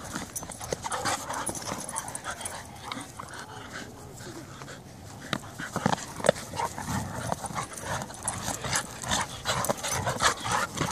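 Two dogs, a Carolina dog and a rottweiler mix, tussling in play over a ball they both hold in their mouths, panting, with many short, sharp scuffling noises that grow louder about halfway through.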